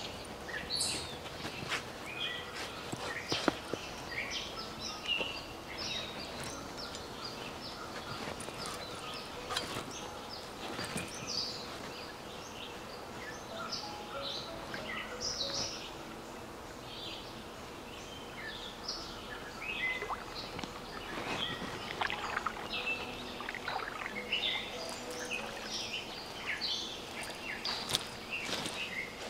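Outdoor ambience with birds chirping throughout, broken by intermittent handling sounds: a cleaver cutting into a jackfruit with sharp knocks near the start, and water sloshing as something is washed in a river partway through.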